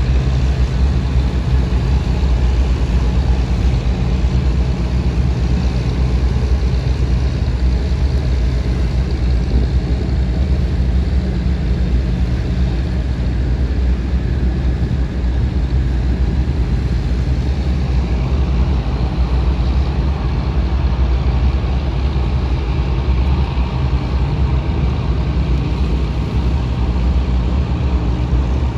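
Diesel engine of a bottom-trawl fishing boat running steadily under way, a deep, even drone with a constant hiss above it.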